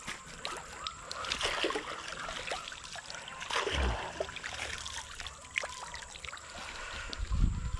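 A hand dip net on a long pole sweeping through shallow pond water, splashing, with water trickling back out through the mesh as it is lifted. A low thump comes about four seconds in and a louder one near the end.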